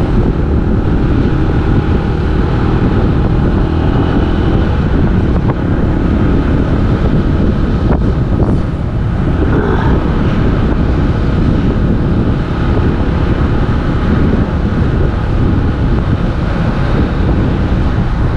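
Wind buffeting the microphone over a vehicle engine running steadily at road speed.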